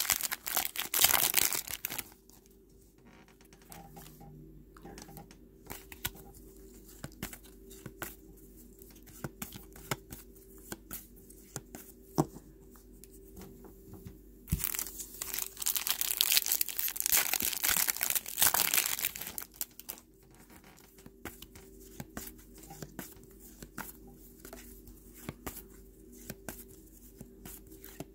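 Foil trading card pack wrappers being torn open and crinkled, in two loud stretches: one right at the start lasting about two seconds, and a longer one of about five seconds in the middle. Faint clicks and rustles of handling fill the gaps.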